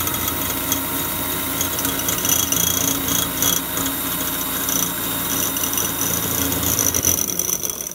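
Philips electric hand mixer running steadily, its beaters whipping cream in a glass jug, with a constant motor whine.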